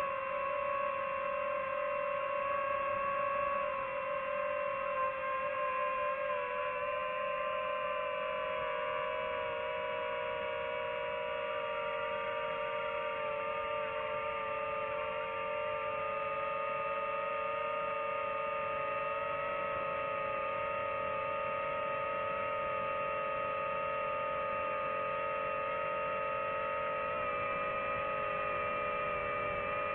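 DJI FPV drone's motors and propellers whining steadily, several tones drifting slowly apart in pitch as the motor speeds change.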